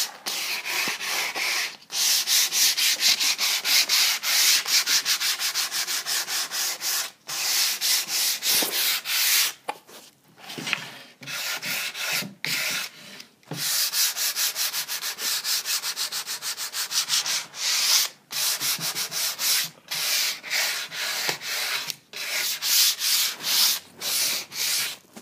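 Sandpaper rubbed by hand over a painted, stained and waxed wooden drawer, distressing the finish. It goes in runs of rapid back-and-forth scratchy strokes, broken by several short pauses.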